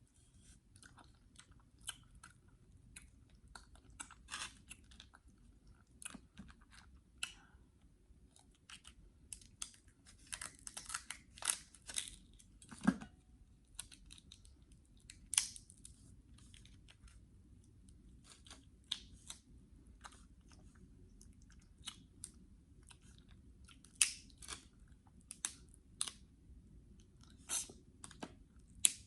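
Close-up eating sounds of someone eating seafood: chewing and wet mouth smacks with many irregular sharp clicks and snaps, busier around a third of the way in and again near the end.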